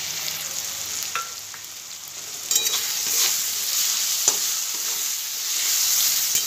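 Diced onion and capsicum sizzling in hot oil in a pan while being stirred, with a few sharp knocks against the pan. The sizzle grows louder about two and a half seconds in.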